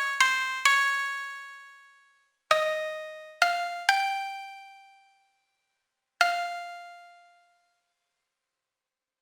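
Piano playing the last notes of a slow melody one at a time, each note struck and left to ring and die away; the final note comes about six seconds in and fades out.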